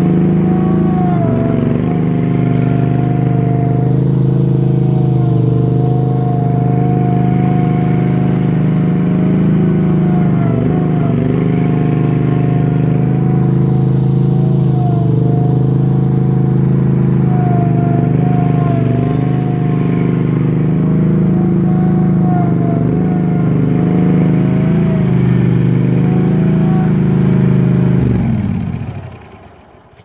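Wacker Neuson RD12 ride-on road roller's Honda V-twin petrol engine running steadily under load, its pitch sagging briefly a few times. Near the end the engine is shut off and runs down to silence.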